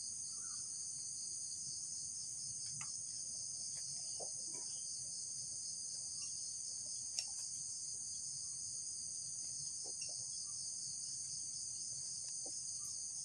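Steady high-pitched chorus of insects, typical of crickets, chirring without a break, with a few faint light ticks now and then.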